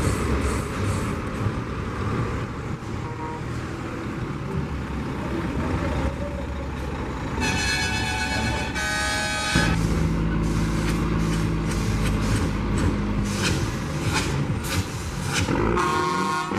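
Heavy diesel trucks rumbling past at low speed, led by a red Scania Highline tractor unit. A truck air horn gives two long blasts about eight seconds in, and another horn starts near the end.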